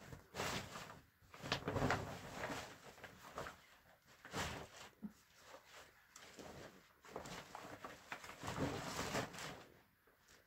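Plastic tarpaulin rustling and crinkling in irregular bursts as it is handled and folded.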